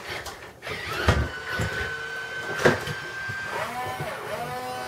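Radio-controlled toy excavator and loader electric motors whining in a steady high tone that bends down and up again near the end as they are worked, with a sharp clunk about a second in and another near the middle.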